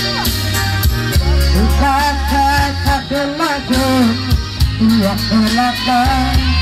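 A man singing into a microphone over backing music with a heavy bass line and steady beat. His voice comes in about a second and a half in, on wavering held notes.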